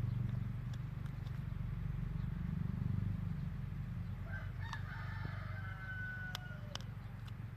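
A rooster crows once, a call of about two and a half seconds beginning about four seconds in and ending on a long held note, over a steady low rumble.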